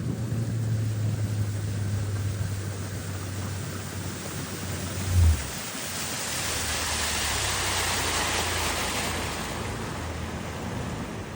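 A vehicle engine running at a steady low hum under rushing wind and road noise. The noise swells for a few seconds past the middle, and there is a single low thump about five seconds in.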